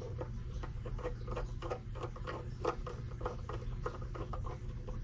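Quick, irregular small clicks and ticks from hands and a screwdriver working the screws on the metal case of an SWR/watt meter.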